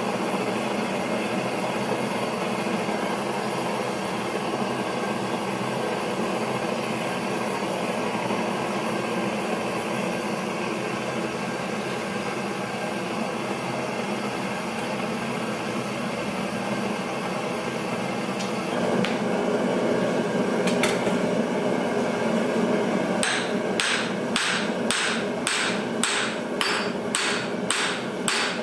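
Gas forge burner running with a steady rush while a 1045 steel block heats inside. Near the end, hammer blows begin on a hand-held punch set in the red-hot block, about two a second, punching the hammer's eye.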